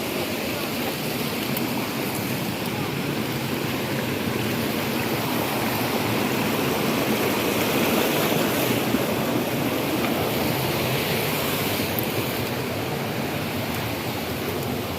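Steady rush of flowing river water, swelling a little louder around the middle before easing back.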